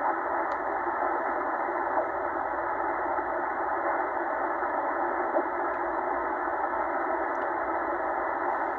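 Tecsun H-501X shortwave receiver in upper-sideband mode giving a steady hiss of band noise while being tuned up through the 20-metre amateur band's voice segment, with no clear station heard. The hiss is narrow and thin, cut off below and above by the radio's sideband filter.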